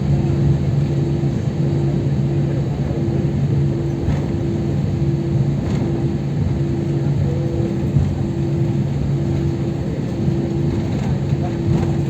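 Steady cabin noise of an airliner after landing: a continuous rumble from the engines and air system, with a low, even hum running through it.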